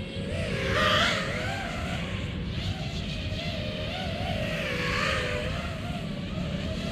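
A 5-inch FPV racing quadcopter's brushless motors (T-Motor Pacer 2207 1950KV on 6S, 5043 props) whining, the pitch rising and falling as the throttle changes. There are louder surges about a second in and again around five seconds.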